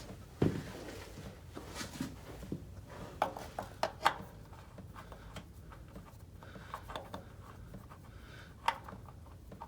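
Scattered knocks and clicks of tools and parts being handled, with a dull thump about half a second in and sharper clicks around four seconds and again near the end.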